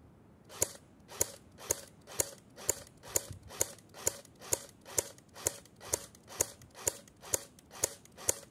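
Cyma CM.028U AK-pattern airsoft electric gun firing in semi-automatic, one sharp snapping shot at a time, about sixteen shots at an even pace of roughly two a second.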